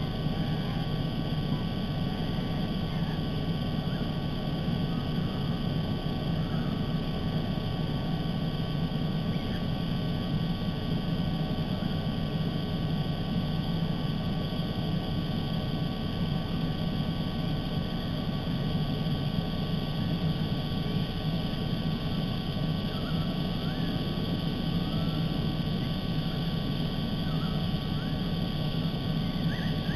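Steady low rumble and hiss of outdoor background noise, with a few faint, short bird chirps scattered through it.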